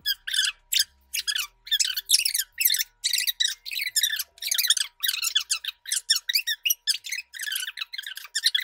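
A person's voice played back fast-forwarded, heard as rapid high-pitched squeaky chatter with no low tones.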